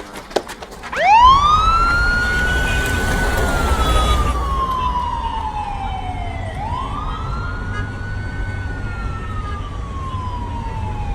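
Police siren wailing: each cycle rises quickly, then falls slowly over about five seconds. Two full cycles sound, and a third begins near the end, over the low rumble of a vehicle engine. A few sharp knocks come just before the siren starts.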